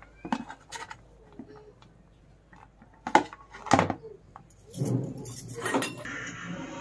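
Steel slotted skimmer spoon knocking and scraping against a plate and a steel pot while rice is served out, with two sharp clinks about three seconds in and a rattling scrape about five seconds in.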